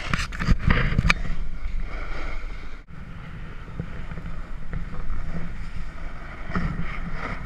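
Wind on an action camera's microphone and a snowboard sliding and scraping over packed snow, a steady rushing noise. A few sharp knocks in the first second, and a brief dropout about three seconds in.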